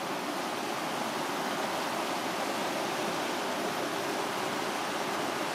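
Steady rushing of the River Dochart's rapids, water tumbling over rock at the Falls of Dochart.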